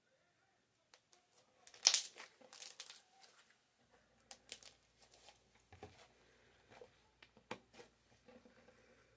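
Slime being handled, making irregular crackling pops and clicks, loudest about two seconds in.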